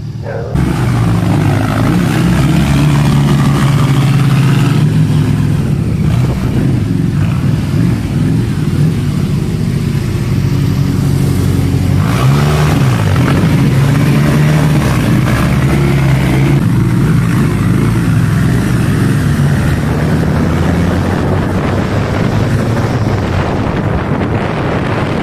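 Vehicle engine running under way, its pitch rising and falling with acceleration and gear changes, heard from a motorcycle riding behind the trike.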